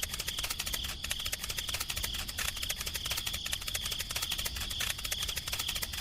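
Small electric motor and gearbox of a DIY miniature tractor running steadily, with a fast, even clicking rattle over a constant high whine.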